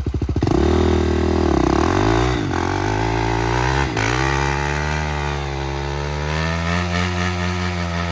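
Motorcycle engine catching about half a second in, revving briefly, then running steadily with a quick blip of the throttle.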